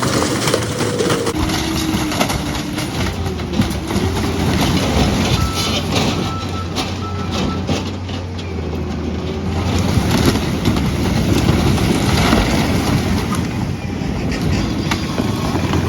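Skid steer engine running hard under load while an old camper is dragged and torn apart with a steel cable: continuous crunching, cracking and scraping of the camper's body, with creaking squeals of metal as it bends.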